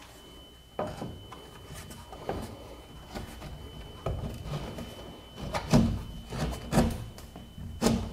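3D-printed ABS access panel being pushed up into a hole in a plaster ceiling: irregular knocks, scrapes and rubs as its flaps catch and spring against the edge of the opening. The knocks are loudest in the second half.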